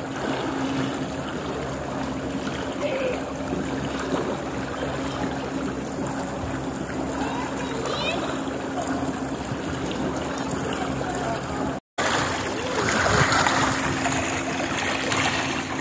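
Aluminium boat running under a BST 86L electric outboard: a steady hum from the motor over water rushing and splashing along the hull and in the wake. The sound drops out for a moment about twelve seconds in, then resumes.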